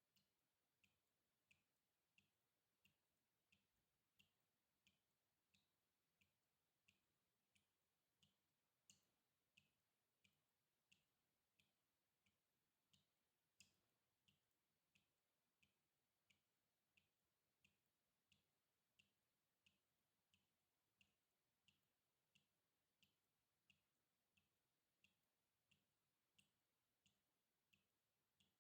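Water dripping in a steady rhythm, about three faint drops every two seconds, each a short, sharp plip. Two drops, about nine and fourteen seconds in, are louder than the rest.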